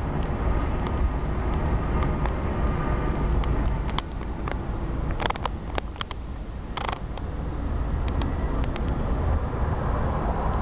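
Road and engine noise heard from inside a moving vehicle at highway speed: a steady low rumble, with a few short clicks or rattles about four seconds in and several more between five and seven seconds.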